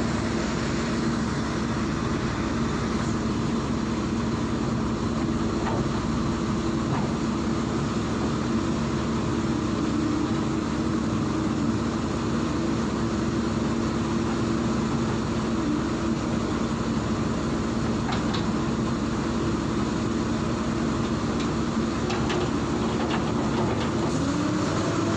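Excavator diesel engine running steadily with a constant hum. Near the end it revs up, rising in pitch.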